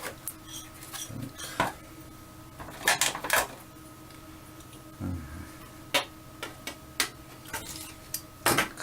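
Metal door-lock parts and their packaging being handled: scattered clicks and clinks, the loudest cluster about three seconds in.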